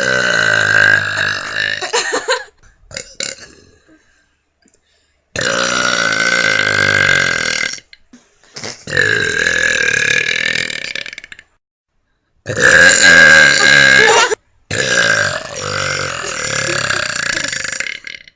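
A person belching: a string of five long, loud, drawn-out belches, each lasting a few seconds, with short pauses between them.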